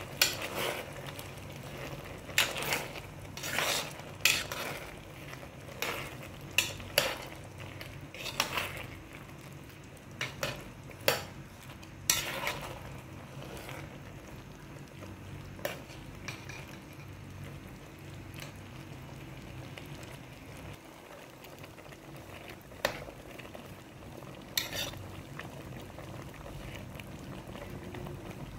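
Metal spoon stirring a thick, creamy chicken and vegetable stew in a pot, clinking and scraping against the pot many times in the first half and only now and then afterwards, over the stew's bubbling simmer.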